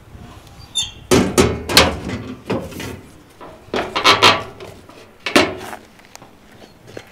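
Sheet-metal smoker's doors being shut and latched with a wooden bar slid through a metal bracket: a run of sharp metallic bangs and knocks, about eight of them, the first starting about a second in, the last about five and a half seconds in.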